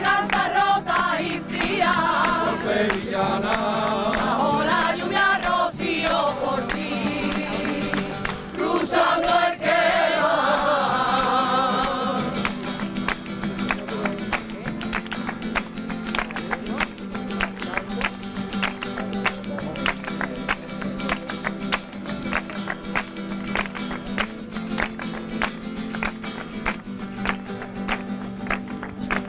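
Sevillanas rocieras sung by a group of voices to a tambourine rhythm. The singing stops about twelve seconds in, and the tambourine beat carries on.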